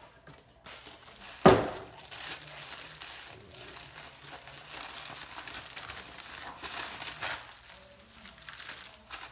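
Plastic packaging crinkling and rustling as individually wrapped parts are unpacked and handled, with a single sharp knock about a second and a half in.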